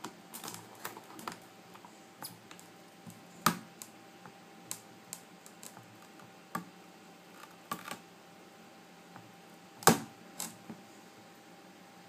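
Irregular small clicks and taps, from a pry tool and the iPad 2's glass panel being worked loose from its glued frame. Two are louder, about a third of the way in and near the end. A faint steady tone runs underneath.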